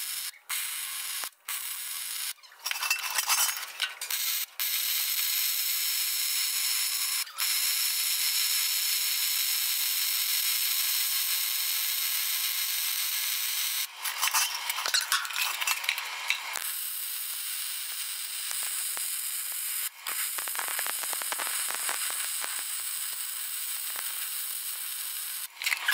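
MIG welding arc crackling and sizzling as beads are run around the steel hinges of a dump bed. The arc comes in several runs, a few short ones at first and then longer unbroken stretches, with brief stops between them.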